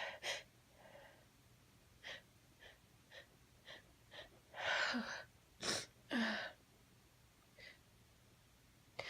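A woman's snuff-tickled nose: a run of short sniffs about half a second apart, then gasping breaths and a sharp sneeze about halfway through.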